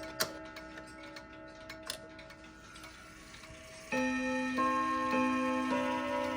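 A Girod dual-chime wall clock playing its chime melody: struck notes ring and fade, with a couple of sharp clicks in the first two seconds, then about four seconds in a new phrase begins, a fresh note roughly every half second.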